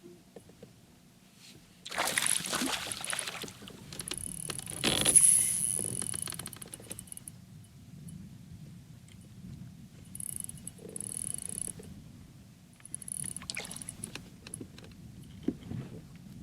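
Fishing gear being handled in a kayak: rustling, clattering and knocks in several bursts, the loudest about two seconds in and again at five seconds.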